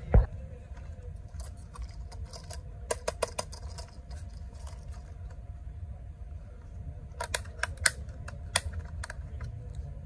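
A hard thump at the very start, then scattered clusters of small sharp plastic clicks and taps from handling a toy RC car's plastic body and chassis and working its screws with a small screwdriver, over a low steady hum.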